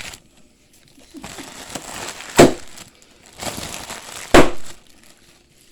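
Packing material from a shipping box being handled and crushed, crackling, with two sharp loud cracks about two seconds apart.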